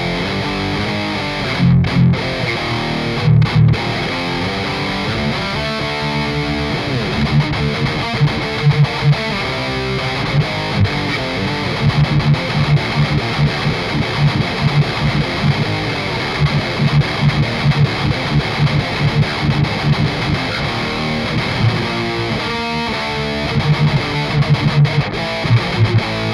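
Heavily distorted electric guitar playing metal rhythm riffs with rapidly repeated low notes, through a free amp-sim plugin. A very short stereo delay (Voxengo Stereo Touch, Guitar Space preset) widens the mono track into a big stereo sound.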